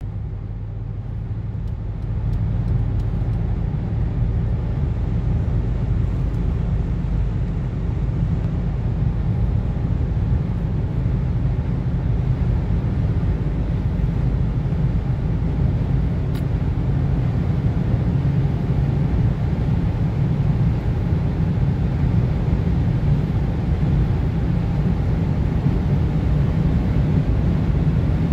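Cabin noise of a 2014 Mercedes C180 (W204 facelift) under hard acceleration at high speed: its 1.6-litre turbocharged four-cylinder engine, tyres and wind make a steady low drone that grows louder about two seconds in.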